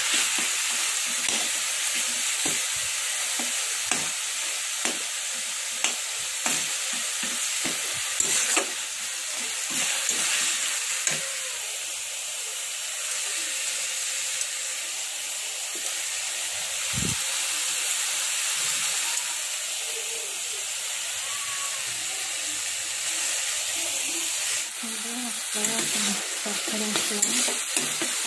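Prawns, tomato and spice paste sizzling in oil in a kadai, stirred with a metal spatula that scrapes and knocks against the pan. The knocks come often in the first half and thin out later. This is the masala being fried until the oil separates.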